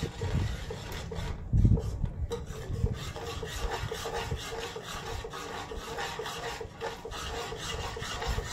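Steel ladle scraping and stirring thick masala paste in a stainless-steel kadai as it fries down: repeated rasping scrapes of metal on the pan, with a dull knock about one and a half seconds in.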